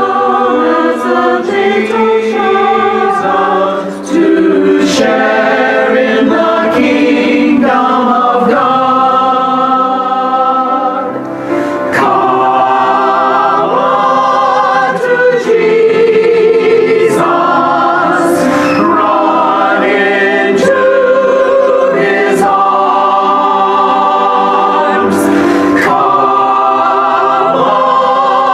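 Church choir of mixed men's and women's voices singing a sacred piece, with a director leading.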